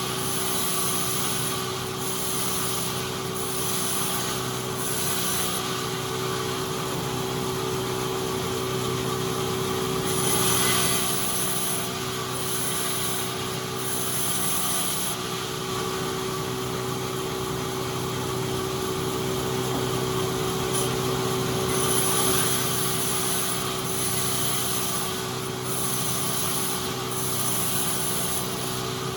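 Sawmill machinery running steadily with a constant-pitched hum, overlaid by clusters of short high hissing bursts near the start, in the middle and toward the end.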